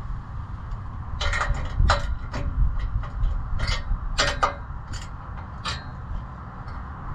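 Hand tools clinking against a clamp-on exhaust O2 sensor bung as it is tightened: about nine sharp, irregular metallic clicks and knocks over a low rumble.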